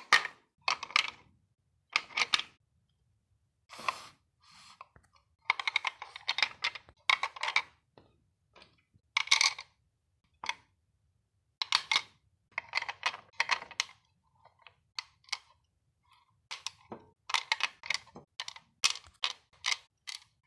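Small natural stones clicking and clacking against one another as they are picked up and set down while being arranged, in irregular flurries of quick clicks with short pauses between them.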